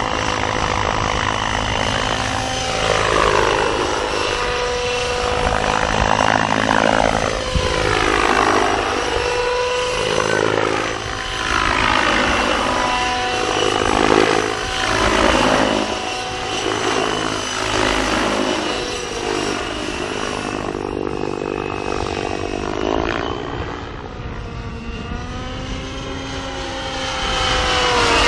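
Radio-controlled model helicopter flying aerobatics. The whine of its motor and rotor blades swoops up and down in pitch every second or two as it flips and climbs, then rises and falls more slowly near the end.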